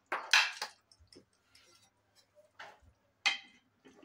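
A metal ladle clinking and scraping against the inside of a pressure cooker as the curry is stirred: a few sharp, separate clinks, the loudest just after the start and another about three seconds in.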